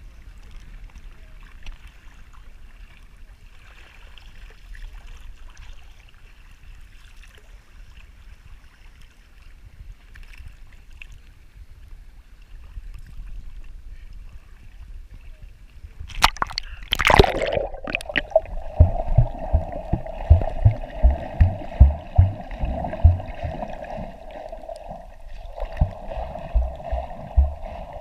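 Shallow seawater around a camera: faint sloshing above the surface, then a splash about two-thirds of the way in as the camera plunges underwater. After that the sound turns muffled, a steady droning tone with repeated low thumps as the camera moves through the water.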